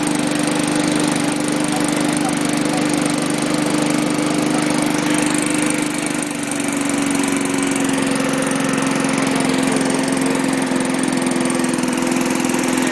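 A brand-new Cougar four-stroke lawn mower engine running steadily on its first run after assembly. Its pitch sags slightly about six seconds in, then holds.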